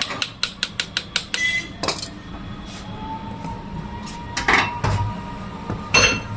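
Rapid light hammer taps on metal, about seven a second, then a few single heavier knocks, as a new socket is worked onto an e-rickshaw motor shaft. A faint steady tone runs under the second half.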